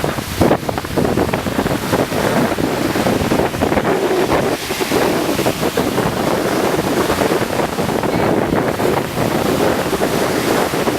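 Wind blowing across the microphone over the sound of sea water and surf, a steady rushing noise that flickers unevenly.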